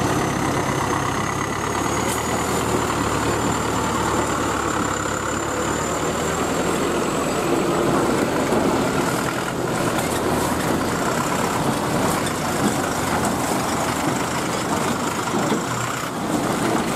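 Diesel engines of Eicher lorries running as they crawl past through mud, a deep hum strongest in the first few seconds as the nearest truck goes by, over steady rumble and tyre noise. A faint high whine rises slowly in pitch through the first half.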